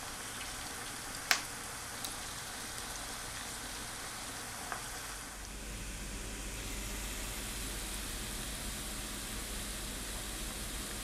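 Sliced onions sizzling in hot oil in a non-stick frying pan, with a sharp knock a little over a second in. About halfway through it changes to chopped garlic frying in oil, steady sizzling with a low hum underneath.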